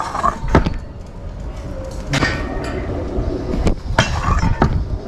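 Stunt scooter rolling on concrete: a steady low rumble from its wheels, broken by several sharp clacks as the deck and bars knock.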